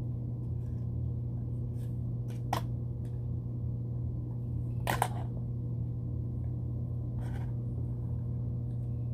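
A few sharp plastic clicks and faint rustles of a toy's packaging being handled and unwrapped, the two loudest about two and a half and five seconds in, over a steady low hum.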